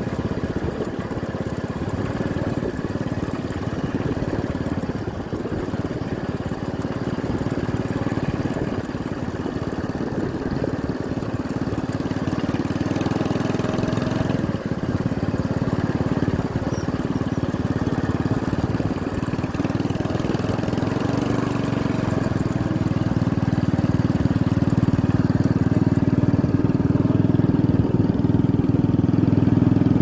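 Motorcycle engine running steadily as the bike rides along, growing louder over the last several seconds.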